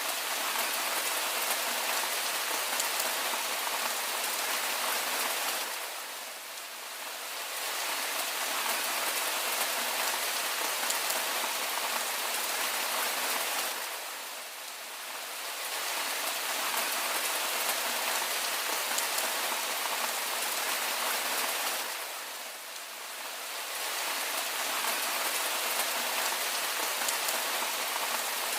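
Steady rainfall: a dense hiss of raindrops on surfaces, with no distinct drips or thunder. The loudness eases briefly about every eight seconds, then returns.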